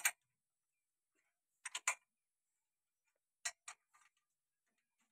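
Sharp metallic clicks of a ratchet wrench, mostly in quick pairs with short pauses between strokes, as it tightens the two bolts that press the worn center-pin bush out of the tractor's front axle beam.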